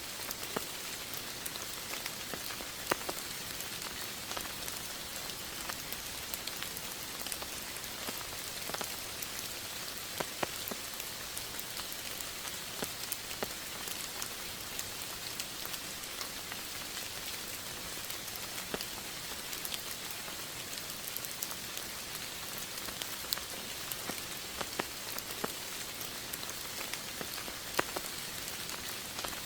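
Steady rain falling, an even hiss with many separate drops tapping sharply here and there.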